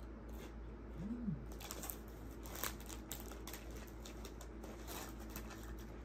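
Close-up eating sounds of a person eating pistachio gelato: wet mouth clicks and lip smacks, with a short hummed "mm" about a second in.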